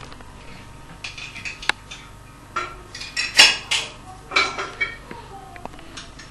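Pieces of cut cucumber and jackfruit seed being put into a metal pressure cooker: a run of clinks, clatters and scrapes of utensils against the pot, loudest about halfway through.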